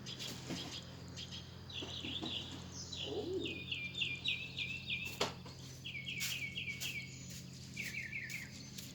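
A songbird singing in repeated short trilled phrases, over a steady low hum. Scattered light clicks and one sharp knock about five seconds in.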